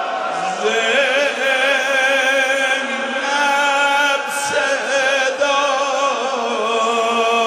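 A man's voice singing a Shia Muharram mourning chant into a microphone, in long held notes with a wavering vibrato that move in small steps from one pitch to the next.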